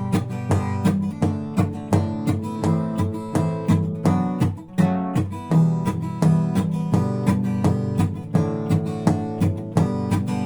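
Acoustic guitar strummed in a steady rhythm, with knocks on the guitar's body mixed into the strumming pattern.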